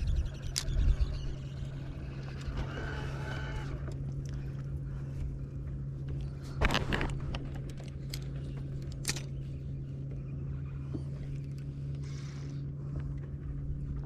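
A boat's motor running steadily with a constant low hum, with two short sharp sounds about seven and nine seconds in.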